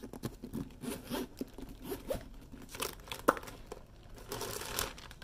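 Zipper on a makeup case being pulled open, with crinkling of plastic packing inside it and scattered handling clicks.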